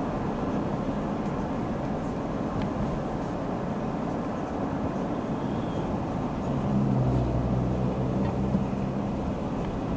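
Road and engine noise of a car driving on city streets, a steady rumble. From about six and a half seconds in, a low engine hum grows louder for a couple of seconds, then eases.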